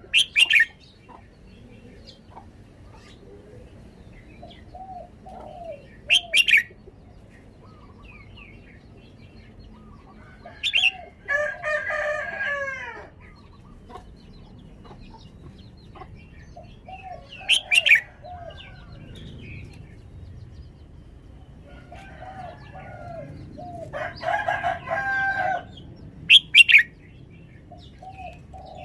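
Red-whiskered bulbul in its cage giving short, sharp, bright song phrases four times, spaced several seconds apart. A rooster crows twice in the background, about eleven seconds in and again near the end.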